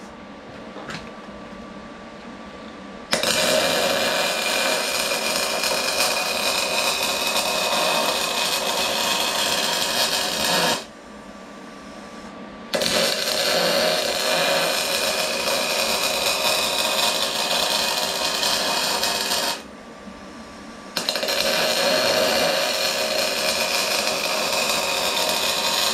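Wire-feed welder arc crackling and hissing steadily as weld beads are run down the inside of a cast-iron diesel engine cylinder liner; the beads shrink the liner as they cool so it can be driven out. Three runs, starting about three seconds in, with two short breaks between them.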